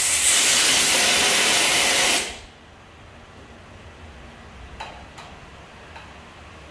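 A loud burst of hissing air that lasts about three seconds and cuts off, followed by two or three light clicks.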